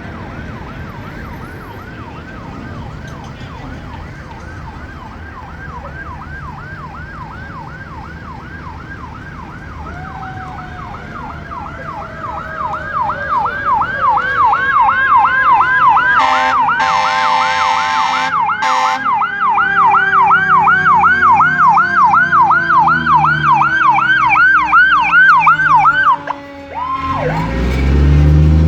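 Fire engine's siren on a rapid yelp, about two to three sweeps a second, growing louder as the truck approaches, with a lower tone falling slowly beneath it. A long, loud horn blast sounds just past halfway. Near the end the siren cuts off and the truck's diesel engine is heard as it pulls up.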